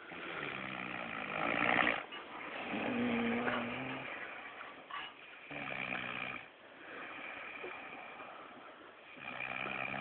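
A man snoring in deep sleep, a rasping snore with a low buzzing pitch every few seconds.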